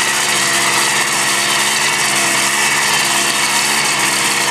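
A four-wheeler (ATV) engine held at high, steady revs, straining under load as the quad churns through deep mud in four-wheel drive.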